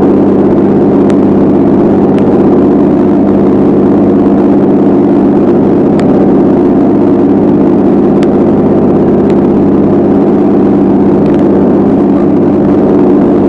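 Boat engine running steadily under way, a loud constant drone, with a few faint ticks now and then.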